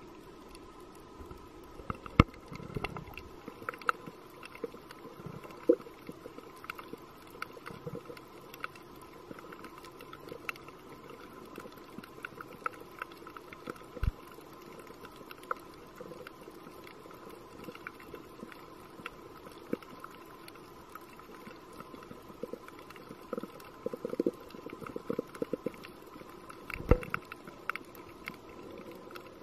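Underwater ambience: a steady faint whine over a low hiss, scattered with sharp clicks and crackles and a few louder knocks, the loudest about two seconds in and near the end.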